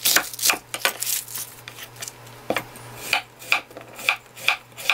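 Chef's knife chopping cabbage and then slicing a raw potato into rounds on a wooden cutting board: quick knocks of the blade on the board, settling into a steady beat of about two a second in the second half.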